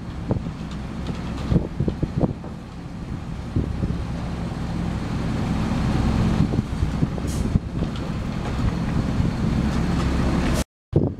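Automated side-loader garbage truck with its diesel engine running steadily while the hydraulic arm handles a trash cart, with scattered clanks and knocks. The sound cuts out briefly near the end.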